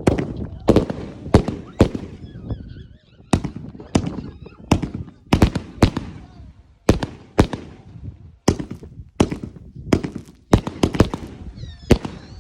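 A consumer firework going off in a long, irregular series of sharp bangs, about two to three a second.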